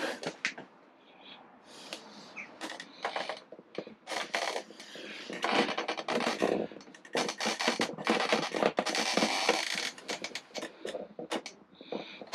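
Small metal fittings being handled and tightened with a spanner: scattered clicks, taps and rattles of tools, washers and bolts on metal brackets and plastic, with a denser stretch of scraping and clicking about seven to nine seconds in.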